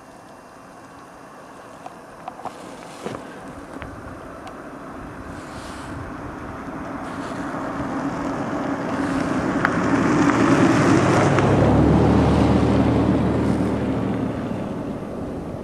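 An ATV's engine approaching and passing: it grows steadily louder to a peak about ten to twelve seconds in, then fades. A few light clicks come about two to three seconds in.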